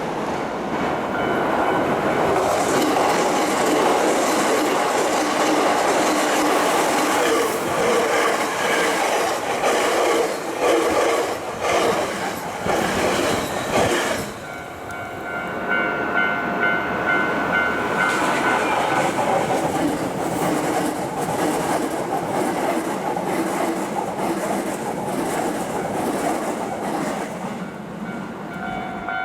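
Hankyu Kyoto Line electric train passing close by, its wheels clacking rhythmically over rail joints for about the first half. About halfway through the clacking stops and the level-crossing warning bell rings as a steady tone over the rumble of train noise. The bell fades after a few seconds and starts again near the end.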